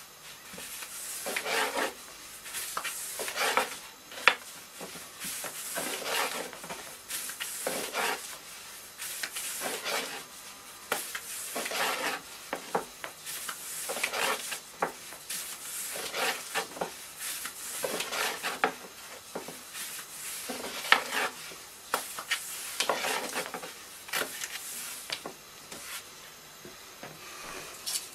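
Long thin wooden rolling pin (oklava) rolling out dough on a floured wooden board: repeated swishing, rubbing strokes about one a second.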